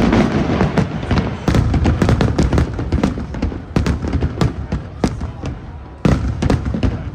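Aerial fireworks exploding in quick succession: many sharp bangs and crackles over a low rumble, easing briefly about six seconds in before more bangs follow.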